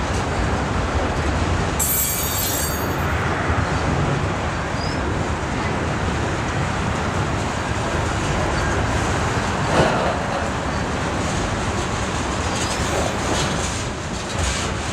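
Freight train cars rolling past steadily on the rails. A brief high-pitched wheel squeal comes about two seconds in, and there is a single knock a little after the middle.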